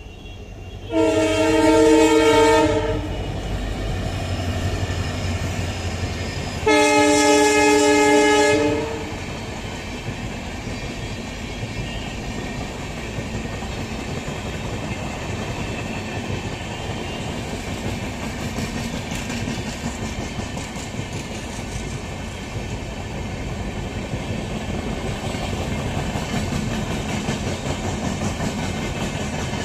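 WDP4 (EMD GT46PAC) diesel locomotive sounding two long multi-tone horn blasts, each about two seconds, a few seconds apart. Then its train of passenger coaches runs past at speed with a steady rumble and clickety-clack of wheels over rail joints.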